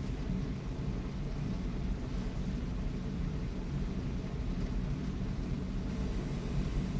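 Steady low rumble of room background noise with no distinct events.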